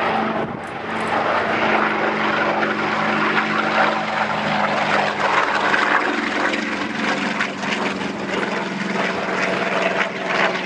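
Curtiss Hawk 75's radial piston engine and propeller drone steadily as the fighter passes low with its undercarriage down. The engine note drops slightly about halfway through as it goes by.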